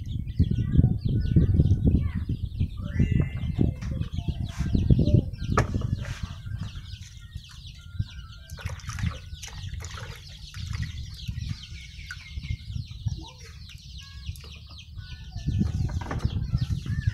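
Hands sloshing and splashing raw meat and then vegetables in plastic basins of water, in uneven bursts that are loudest in the first few seconds and again near the end. Many short, high bird chirps run on in the background, clearest in the quieter middle.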